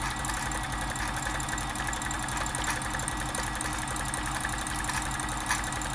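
Janome Combi DX 502 sewing machine running steadily at sewing speed, stitching fabric with a fast, even mechanical rhythm.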